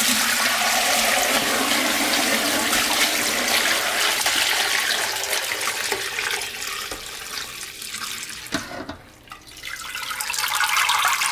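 Beef pho broth poured from a large stockpot through a mesh strainer full of bones and solids into a stainless steel pot: a steady splashing stream. It eases off about eight seconds in, then picks up again near the end.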